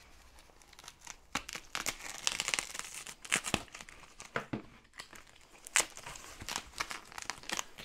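White plastic packing wrap being crinkled and torn open by hand around a kit part, a string of irregular crackles and short tearing rasps that he calls a very satisfying noise.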